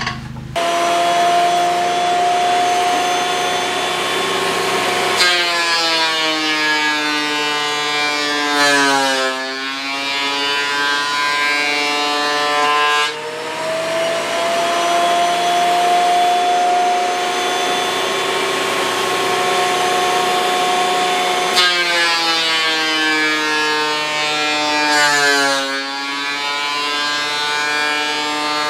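Delta benchtop thickness planer running, really loud, its motor whine starting about half a second in. Twice the pitch sags as a wooden board feeds through the cutterhead and takes the cut, then rises again as each pass finishes. The planer's knives are worn: the owner thinks they need replacing.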